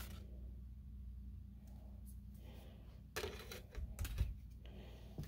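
Light handling noises of cards and paper being picked up and moved: faint clicks and rustles, a little louder from about three seconds in, over a steady low hum.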